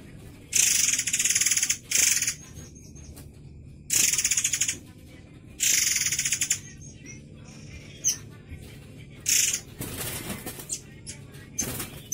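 A caged murai air mancur giving a run of harsh, rasping calls, the longest over a second, with a few short high notes between them near the end.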